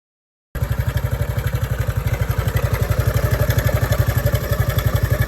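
Honda Super Cub JA07's 110 cc single-cylinder four-stroke engine idling, with an even exhaust beat of about eleven pulses a second; it starts abruptly about half a second in.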